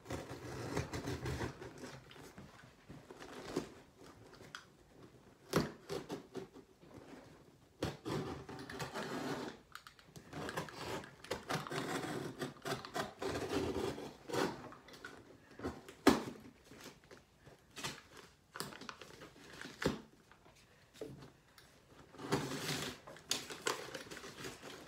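A cardboard shipping box being worked open at its top by hand: stretches of scraping and rustling of cardboard and packing tape, with a few sharp knocks.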